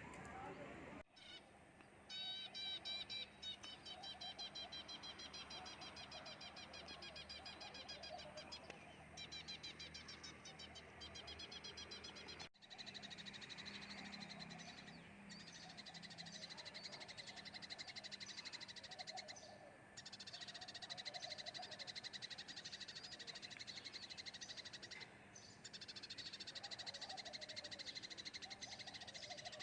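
Faint chorus of birds chirping, with rapid repeated high trills and softer calls beneath. It drops out for an instant about a second in and again about twelve seconds in.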